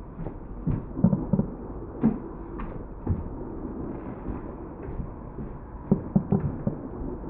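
Fireworks display: aerial shells bursting in an irregular series of bangs over a steady low rumble, the loudest clusters about a second in and again around six seconds.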